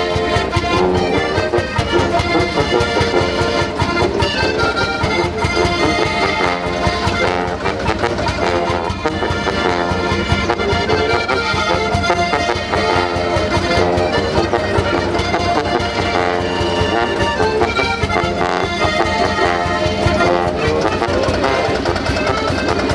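A live folk tune played on button accordions, with acoustic guitar and a brass horn, at a steady beat.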